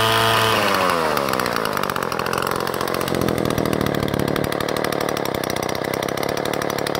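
Soviet Druzhba two-stroke chainsaw held at high revs, then throttle released about half a second in: the engine note falls away and the saw settles into a steady, rapidly pulsing idle.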